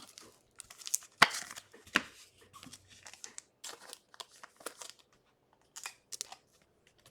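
Trading cards being sorted by hand: scattered short rustles, crinkles and light clicks, with one sharper snap about a second in.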